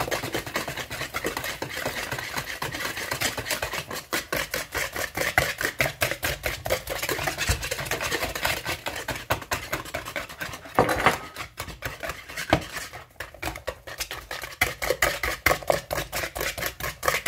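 Wire whisk beating eggs, sugar and honey in a plastic bowl: fast, rhythmic clicking and scraping strokes, several a second, with a brief lull about two-thirds of the way through. The mixture is being whipped until it turns pale.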